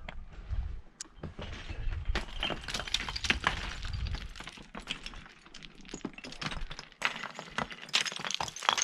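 Boots scrambling over loose, blocky talus: rocks crunching, knocking and clinking underfoot in an irregular stream, with a low rumble under it through the first half.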